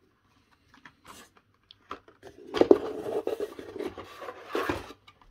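Hands rummaging in a cardboard box among blister-carded toy cars, cardboard and plastic packaging scraping and crackling, loudest from about two and a half seconds in until near the end. A few light taps and clicks come before that.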